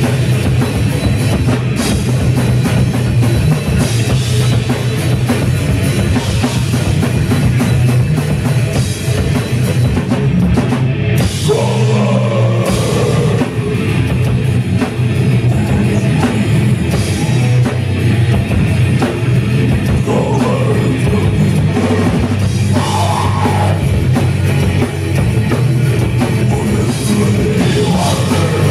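Live heavy metal band playing loud and without a break: distorted electric guitars, bass and a pounding drum kit, recorded from the audience in a small club.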